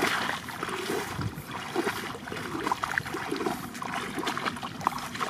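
Water sloshing and splashing around a person's legs as they wade through shin-deep floodwater, in uneven strokes with each step.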